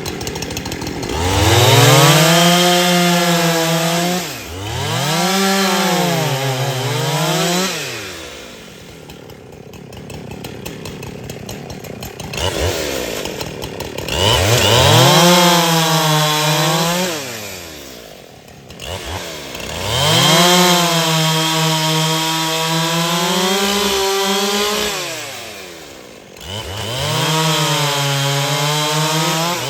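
Husqvarna 372XP two-stroke chainsaw revved up to full throttle five times and held there, as in a cut, each time falling back to idle between cuts.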